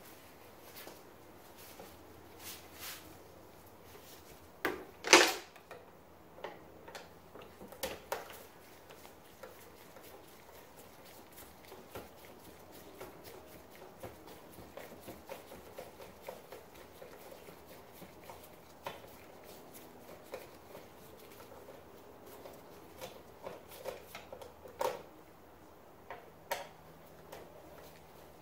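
Scattered small clicks, taps and knocks of hand work with a screwdriver at a jet ski's handlebar grip, with one loud knock about five seconds in.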